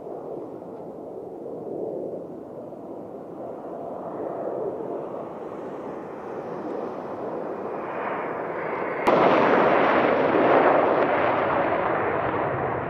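Military fighter jet engines on full afterburner during takeoff: a loud, noisy rumble that builds slowly, then becomes abruptly louder about nine seconds in.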